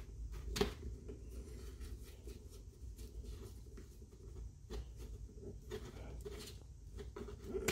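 Faint rubbing and a few light clicks from a KastKing Compass telescopic fishing rod being handled as its sections are pulled out and locked in place.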